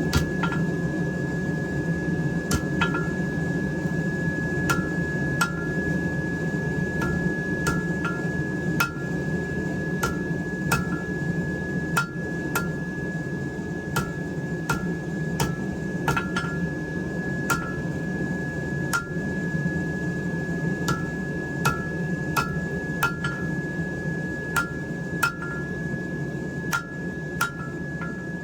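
Hand hammer striking hot steel on an anvil at an uneven pace of about one or two blows a second, each blow followed by a brief metallic ring, while forging the knife's tang. A steady low rushing noise runs underneath.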